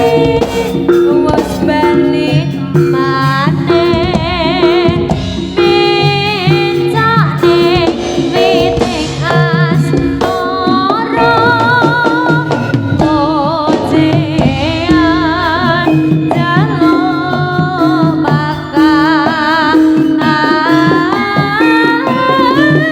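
Javanese Senterewe (jaranan) ensemble music played loud through a sound system: drums and steady gong-like tones under a high, wavering melody line with strong vibrato and sliding pitch.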